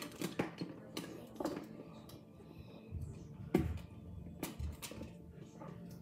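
Cardboard toy box and its packaging being handled and opened by hand: irregular clicks, scrapes and knocks, with a louder knock and a few dull thumps about three and a half seconds in.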